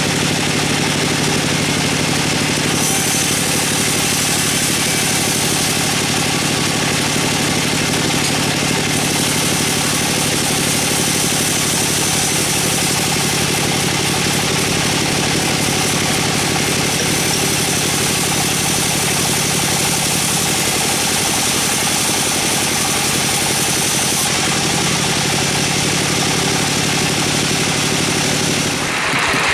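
An engine running steadily at a constant speed, with a slight shift in its tone about twenty seconds in.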